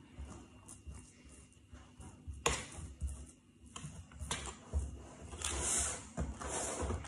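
Back of a metal tablespoon pressing and scraping a crushed rich tea biscuit base in a paper-lined baking tray, with scattered clicks and taps of the spoon. There is a sharp click about two and a half seconds in and a longer scraping rustle near the end.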